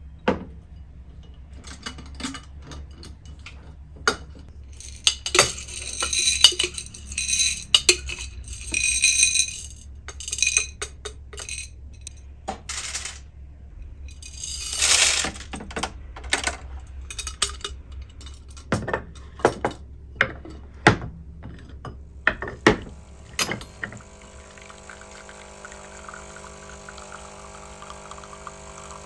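Clinks and clatters of glass and china being handled, with coffee beans rattling as they are poured from a glass bowl into a bean-to-cup espresso machine's hopper. Near the end the machine's pump hums steadily as espresso runs into the cup.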